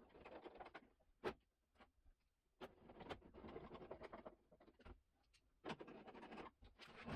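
Faint scraping and rustling from hand tools working at a car door's hinge, broken by a few sharp metallic clicks, the loudest about a second in.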